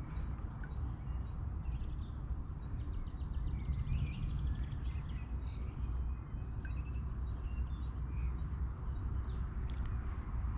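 Outdoor ambience: a steady low rumble under high insect-like chirping, with rows of short repeated chirps and a thin steady high note. There is a brief rapid trill about three to four seconds in.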